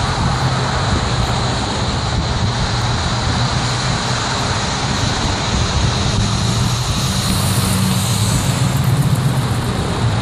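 Freeway traffic passing below: steady tyre noise and car engines, with the low hum of a heavy truck's engine, loudest near the end as the semi-truck convoy passes underneath.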